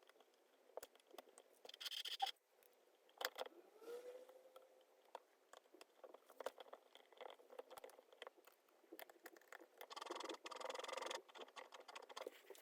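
Faint scrapes and clicks of small parts being handled, with a longer scrape about two seconds in and another around ten seconds in.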